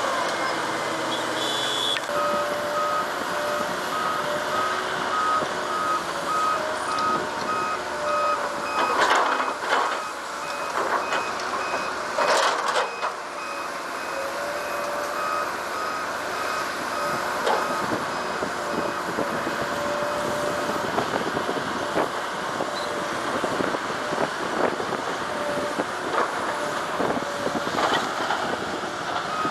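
Heavy-equipment reversing alarm beeping steadily over a running diesel machine, with a couple of louder clattering bursts about a third of the way through.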